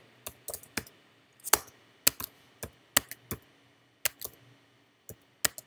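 Typing on a computer keyboard: a string of separate sharp key clicks at an uneven pace, about three a second.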